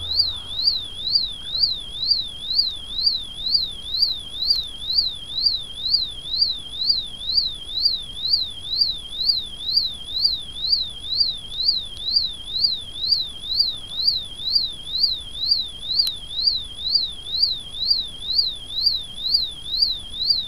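Electronic beeper on a crashed model rocket, warbling steadily: a high tone sweeping up and down about twice a second.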